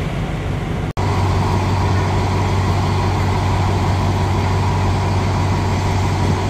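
Alsthom diesel-electric locomotive idling while the train stands at the platform, a steady low hum with an even drone above it.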